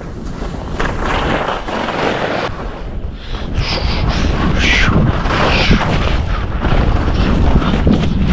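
Wind buffeting the camera microphone with a low rumble as a skier descends, mixed with skis hissing and scraping over chopped-up snow. The rush grows steadily louder as speed builds, with bursts of ski hiss in the middle.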